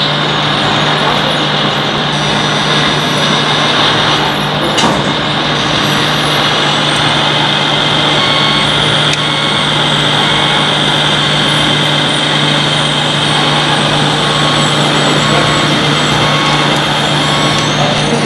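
Radio-controlled MAN 8x8 hook-lift truck running steadily with a constant hum and high whine while its hook arm pulls a loaded dump container up onto the chassis. There is a brief click about five seconds in.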